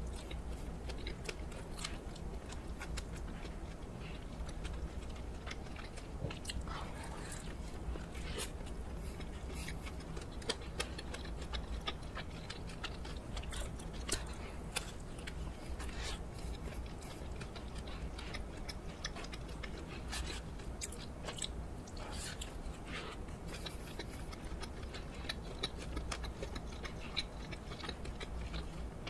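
Close-up chewing and biting of a hot dog topped with crunchy garlic flakes, with scattered small crunches throughout over a steady low hum.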